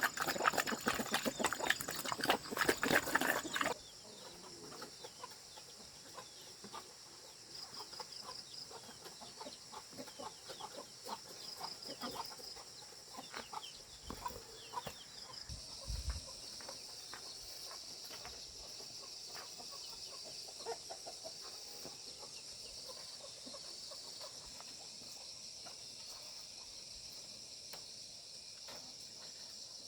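Loud rustling and clicking for about the first four seconds, then a steady high-pitched insect chorus with short trills and scattered faint clicks, and chickens clucking.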